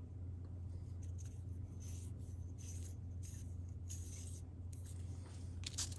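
Short, soft metallic scrapes and rubs, about eight in all, as piston rings are handled and worked onto a small engine piston by hand, over a steady low hum.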